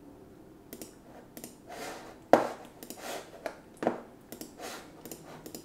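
A scatter of small clicks and taps mixed with short rustling sounds, as of objects being handled on a desk. One sharp tap a little over two seconds in is the loudest, and a second strong one follows about a second and a half later.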